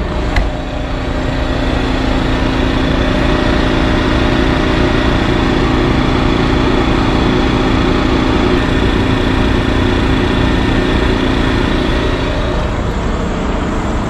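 Generator engine running steadily. Over it a steady, level-pitched hum fades out about twelve and a half seconds in.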